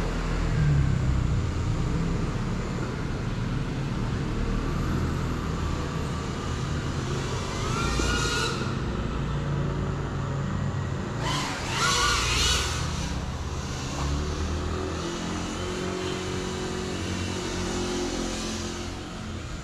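FPV quadcopter's motors and propellers whining, the pitch rising as it throttles up about eight seconds in and again, louder, around twelve seconds in, over a steady low rumble.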